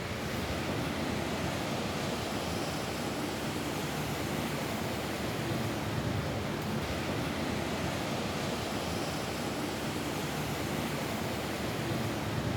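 Steady rain falling on a roof, an even, continuous hiss with slight swells in intensity.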